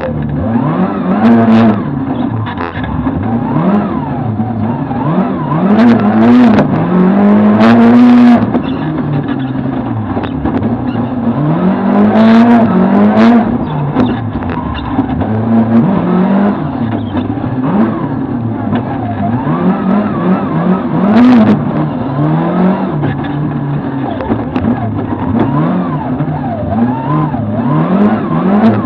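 A Lada VFTS rally car's four-cylinder engine, heard from inside the cabin, revs hard and drops back again and again as the car is driven flat out through the stage. A few sharp cracks sound over it.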